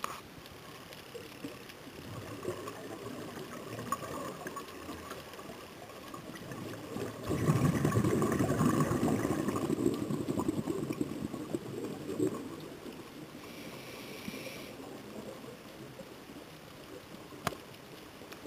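Scuba breathing heard underwater: a loud gush of exhaled regulator bubbles about seven seconds in, lasting about three seconds, over a low crackling background, with a short hiss around thirteen seconds and a single click near the end.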